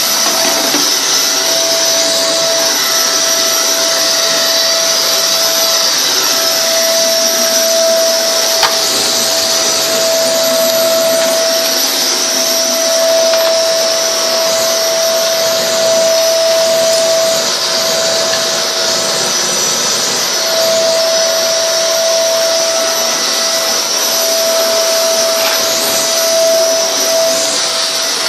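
Hoover Alyx 2000-watt cylinder vacuum cleaner running steadily with an airy rush. A pitched hum in it keeps cutting out and coming back, and there is one click about nine seconds in. It has a popping sound that the owner suspects is the motor arcing.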